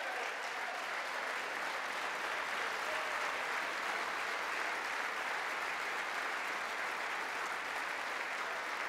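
Steady applause from a crowd of lawmakers clapping.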